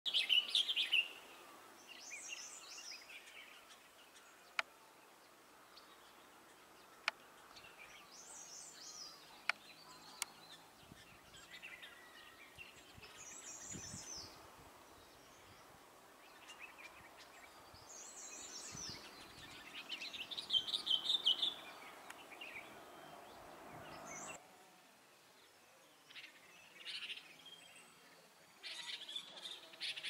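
Himalayan bulbuls calling in short phrases every few seconds. A few sharp clicks come in between, in the first third.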